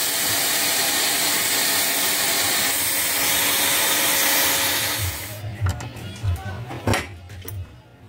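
Steady, loud rushing hiss that cuts off about five seconds in. Background music with a low thumping beat follows.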